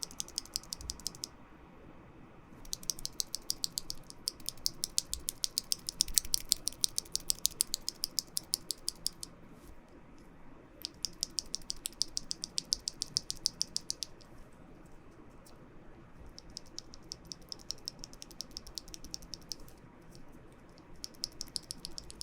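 A single ThicThock Marshmallow linear keyboard switch (JWK-made, nylon housing, progressive spring) is pressed and released rapidly, giving fast, even clacks. They come in several runs of a few seconds each, with short pauses between, as the stock and lubed versions of the switch are compared.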